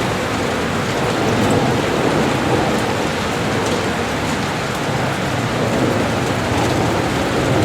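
Heavy rain beating steadily on a window pane, a dense, even hiss with slight swells in loudness.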